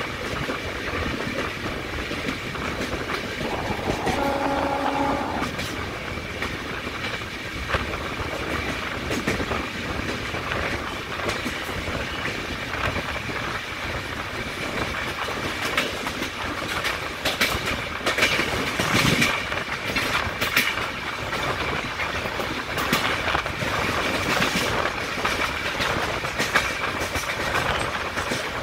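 A moving passenger train heard from an open coach doorway: steady running and wind noise, with the wheels clattering over rail joints under a faint steady high whine. A brief horn sounds about four seconds in, and the clatter grows denser and louder about two-thirds of the way through.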